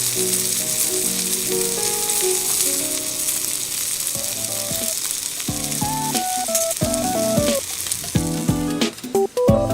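Food sizzling as it fries in a hot pan, a steady crackling hiss that thins out near the end, with acoustic guitar music over it.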